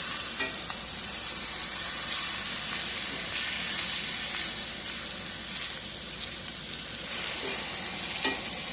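T-bone steak frying in butter in a pan, a steady sizzle, with a couple of faint knocks, one near the start and one near the end.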